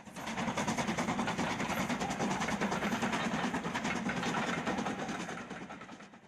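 Steam locomotive working a train, its exhaust beats and rail noise in a quick, even rhythm. It fades in at the start and fades out near the end.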